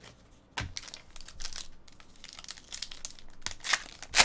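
Trading-card pack being torn open, its foil wrapper crinkling and crackling in quick bursts, with a soft thump about half a second in.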